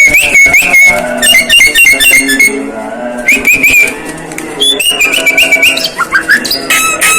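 Javan myna calling: loud whistled phrases that jump in pitch, broken by quick chattering trills, with its odd, mimic-like sounds.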